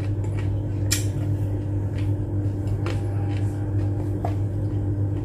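A steady low hum with a few soft clicks about once a second, from chewing a piece of carrot with the mouth closed.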